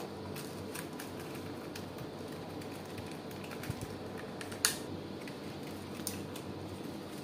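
Scattered light clicks and taps of small objects being handled, the sharpest about four and a half seconds in, over a faint steady hum.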